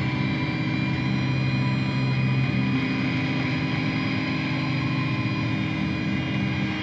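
Electric guitar through an amplifier and effects pedals, holding a steady droning chord; the mix of notes shifts slightly about three seconds in.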